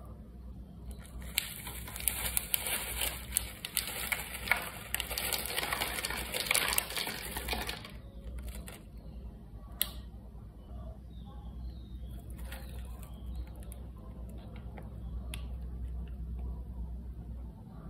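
Plastic sachet of dried vegetable flakes crinkling and being shaken out onto dry noodles in a paper bowl, a dense crackle lasting about six seconds. After that come softer, scattered crinkles and ticks as another plastic sachet is handled and torn open, with one sharp tick about ten seconds in.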